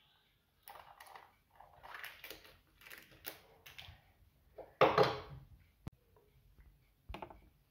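Foil lid being peeled off a small plastic yogurt pot, crinkling and rustling in several short goes, with a louder crinkle about five seconds in and a couple of sharp clicks near the end.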